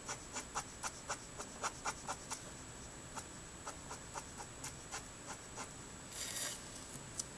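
Alcohol-ink Letraset Promarker nib flicking across Neenah Solar White cardstock in quick short colouring strokes, about four a second at first, then slower. A brief rustle comes about six seconds in.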